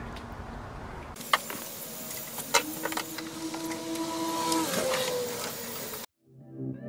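A small electric motor whirring steadily for about two seconds, then dropping in pitch as it winds down, among sharp metal clicks and clanks of work in a car's engine bay.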